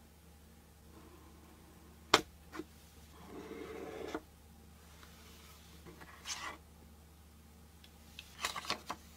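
Cardboard smartphone box being handled with cotton-gloved hands: a sharp tap about two seconds in, the loudest sound, then a smaller tap and about a second of rustling and sliding. A soft brush follows, then a quick cluster of light clicks and scrapes near the end as the box is worked open.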